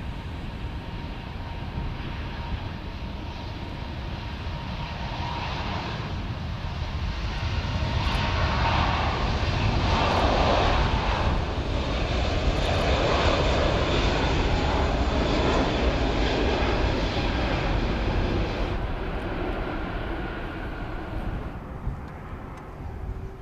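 Airbus A380-861's four Engine Alliance GP7200 turbofans at take-off thrust: a deep jet rumble that swells as the airliner rolls past on its take-off run, then fades as it lifts off and climbs away.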